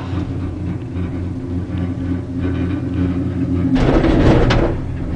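Cable car gondola cabin running with a steady low hum, then a louder rumbling clatter about four seconds in that lasts about a second.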